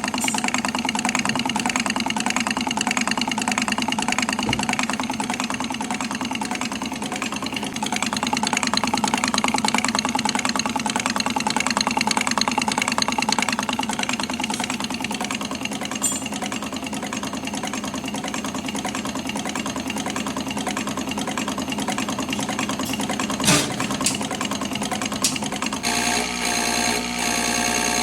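A diesel engine idling steadily, with a sharp click a little over 23 seconds in. Near the end the sound changes abruptly to a different, rhythmic mechanical clatter.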